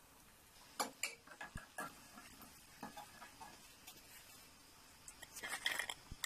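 Potato rings frying in a pan of hot oil: a low sizzle with scattered sharp pops and clicks, and a quick flurry of them shortly before the end. Light clinks of a metal wire strainer against the pan mix in.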